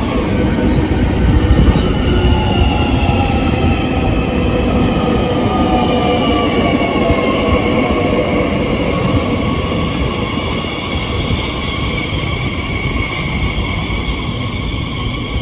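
Transilien electric multiple unit rolling past close by: a steady heavy rumble of wheels on rail, with several high whining tones that slowly fall in pitch.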